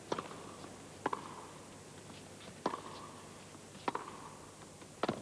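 Tennis rally: rackets strike the ball five times, one sharp crack about every second or so, with fainter ticks from bounces and footsteps in between.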